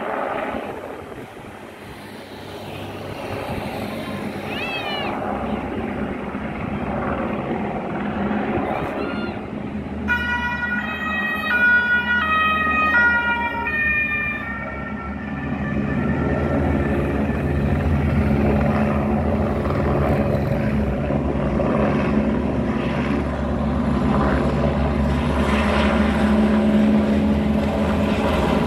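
A stepping two-tone emergency siren sounds for about four seconds midway, over steady traffic noise. After it, a low engine drone grows louder as vehicles pass.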